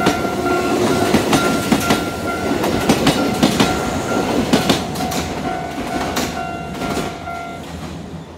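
Yoro Railway electric train passing close by, its wheels clacking over the rail joints, then fading as it moves away. A level-crossing warning bell rings steadily alongside and stops shortly before the end.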